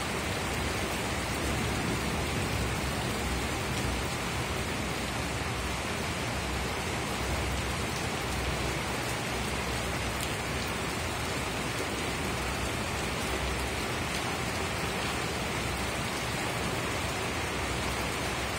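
Heavy rain falling steadily, splashing on a wet wooden deck.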